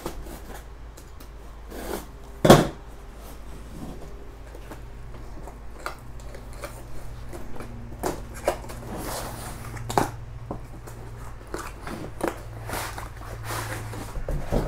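A cardboard box and its packaging being handled and opened to take out a laptop: rustling, scraping and light knocks, with one sharp thump about two and a half seconds in.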